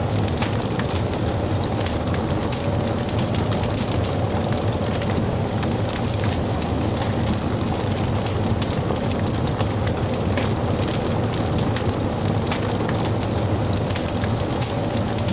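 Wood fire crackling, with many small pops scattered over a steady low rush of the burning fire.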